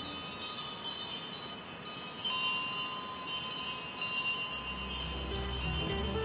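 Several cowbells on grazing cows clanking and ringing, overlapping, struck irregularly as the cows move their heads.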